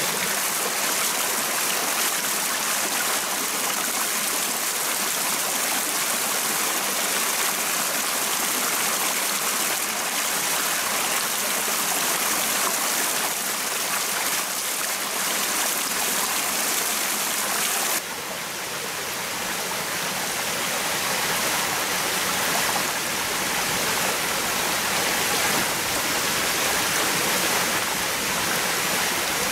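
Water pouring steadily from a split-bamboo pipe onto rocks, over a rushing forest stream. About two thirds in the sound changes abruptly to a slightly quieter, duller rush of the stream.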